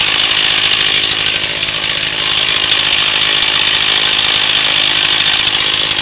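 Chainsaw running steadily at speed, with a slight dip in loudness about two seconds in.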